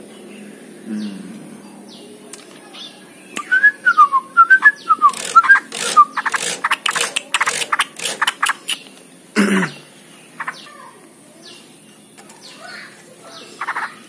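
Yellow-vented bulbul singing a short warbling phrase of quick notes that glide up and down, about three seconds in. Overlapping it and running on for a few seconds is a series of loud, sharp clicks, and a single louder knock follows near the middle.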